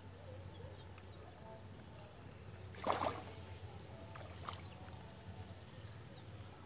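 Handling noises as a small freshly caught tilapia is unhooked by hand: a short burst of flapping and rustling about three seconds in, and a few small clicks, over a faint steady background hum.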